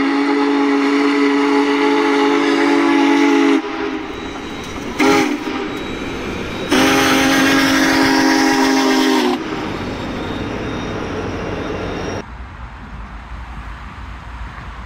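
Union Pacific Big Boy steam locomotive's chime whistle sounding several notes at once: a long blast, a brief one, then another long blast. The train is heard running past afterwards.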